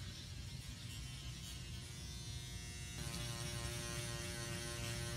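Motorized microneedling pen buzzing steadily as it is worked over facial skin; its hum changes tone and gets slightly louder about three seconds in.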